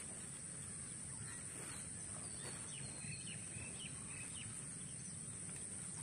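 Quiet rural field ambience: a steady high hiss over a low rumble, with a run of short, quick bird chirps between about two and a half and four and a half seconds in.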